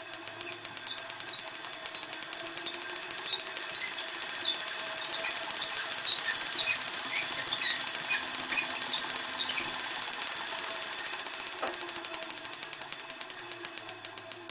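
Hand-cranked Wimshurst electrostatic machine turning, giving a rapid, regular ticking that speeds up and grows louder through the middle, then slows near the end.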